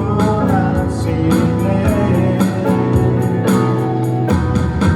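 Live performance of a Korean worship song: a singer holds a sung line over guitar-led instrumental accompaniment.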